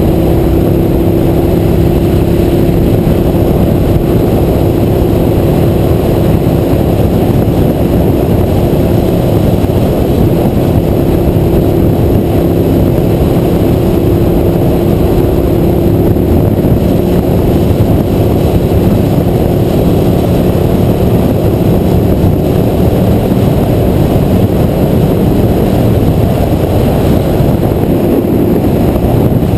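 Motorcycle engine running at a steady cruising speed, a constant drone whose pitch shifts slightly now and then, under heavy wind and road rush on the microphone.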